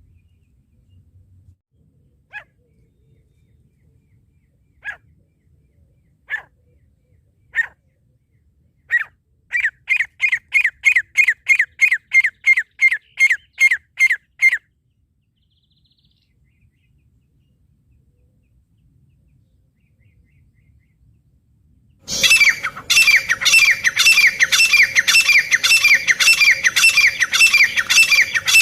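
Francolin (teetar) calling, as used to lure francolins for catching. It starts with a few spaced single sharp notes, which build into a quick run of about three to four calls a second for about five seconds. After a pause, a louder, denser run of repeated calls starts abruptly about 22 seconds in.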